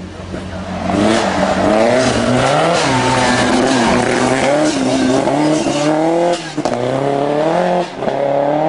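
Lancia 037 rally car's supercharged four-cylinder engine passing at full throttle on gravel, its pitch climbing and dropping through the gears. It lifts off sharply twice near the end.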